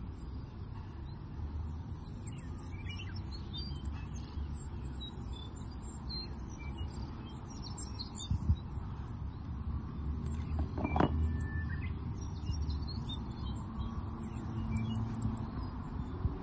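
Outdoor ambience: small birds chirping in short scattered calls over a steady low rumble, with a soft knock or two.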